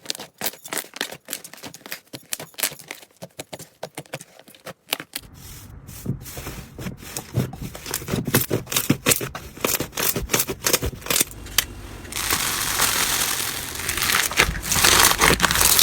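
Slime being squeezed and pressed by hand, giving rapid crackling, crunching and small popping sounds that grow denser and louder near the end.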